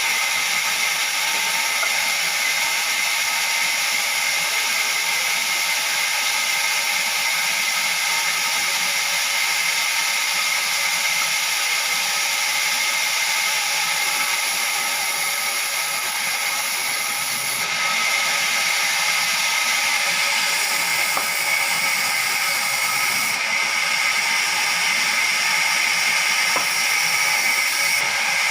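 Steady machine noise from sawmill machinery: a high hiss with several steady whining tones, shifting slightly a few times.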